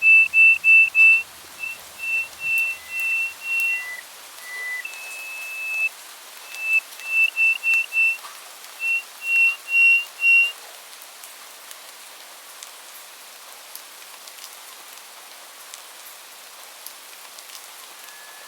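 A songbird whistling a series of clear, steady, single-pitched notes, mostly on one high pitch with a few lower ones, that stops about halfway through. Afterwards there is only a faint background hiss with scattered light ticks.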